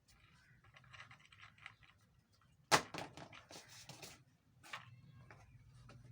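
A kitten playing with a toy: light scratching and scraping, a sharp knock about halfway through followed by more scratching, and a smaller knock a little later.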